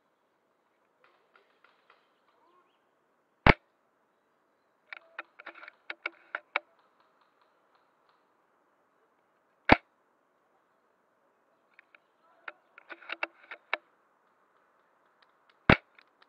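Three shots from a fully upgraded VSR-10-type spring bolt-action airsoft sniper rifle, each a single sharp crack about six seconds apart. Between the shots come quick runs of small clicks as the bolt is worked to cock it and chamber the next BB.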